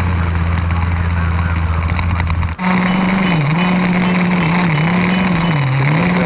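HPI Baja 5B SS 1/5-scale RC buggy's two-stroke petrol engine running hard. Its pitch holds steady, then after a brief dip a little over two seconds in it falls and rises repeatedly with the throttle, faster near the end.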